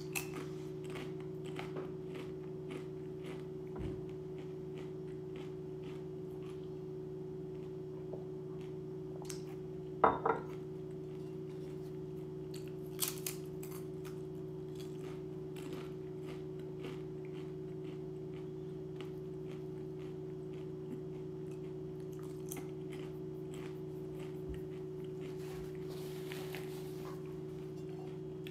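A person chewing a crunchy snack chip, with many faint crunches, over a steady low electrical hum. There are two sharp knocks about ten and thirteen seconds in, and a brief rustle near the end.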